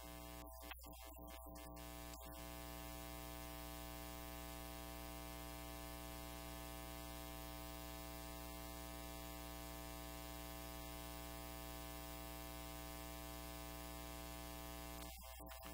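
Steady electrical mains hum with many overtones and hiss in the audio feed. It flickers on and off for about the first two seconds, then holds steady.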